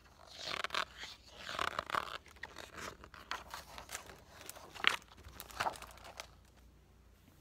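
A picture book's paper page being turned and smoothed flat by hand: a rustle of paper over the first couple of seconds, then a few sharper crackles of the page about five seconds in.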